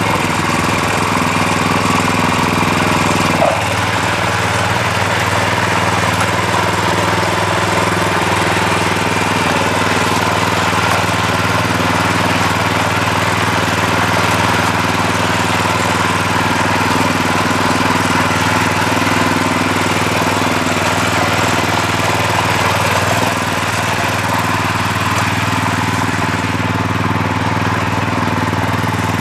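Small single-cylinder petrol engine of a walk-behind garden cultivator running steadily while its tines till the soil, with one brief sharp click about three and a half seconds in.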